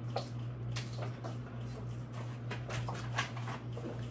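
Light rustling and small scattered clicks and knocks as things are handled and moved around, over a steady low hum.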